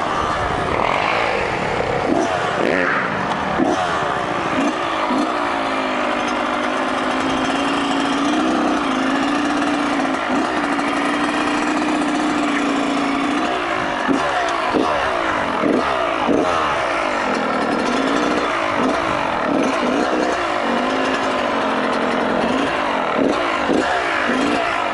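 Kawasaki KX100 two-stroke dirt bike engine running at low speed, its pitch rising and falling with the throttle, with several quick throttle blips in the second half.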